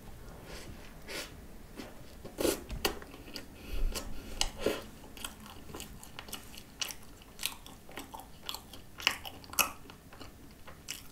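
A bite into a flaky croissant piled with whipped cream and coconut spread, then chewing with irregular crisp crunches of the pastry.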